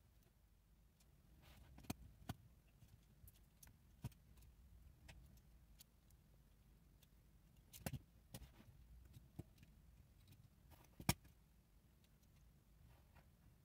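Sparse small clicks and taps over near silence, about seven or eight in all, the sharpest about eleven seconds in.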